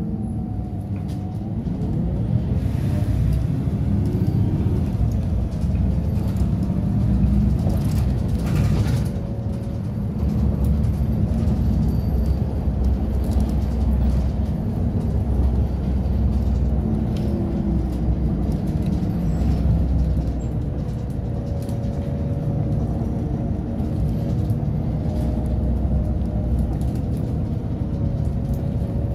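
Inside a moving city bus: steady low engine and road rumble, with a whine that rises in pitch as the bus pulls away and then rises and falls with its speed.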